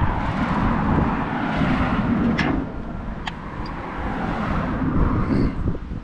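Steady outdoor rush of wind on the microphone with road noise, swelling and easing. Two light clicks about two and a half and three seconds in, from lug nuts being hand-threaded onto the trailer's wheel studs.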